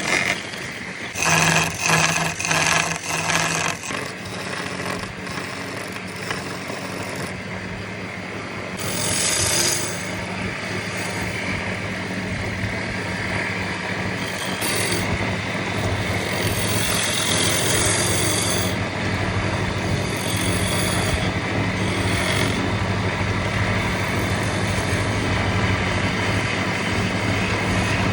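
A machine running steadily with a low hum and loud mechanical noise, with several loud rattling bursts about one to four seconds in.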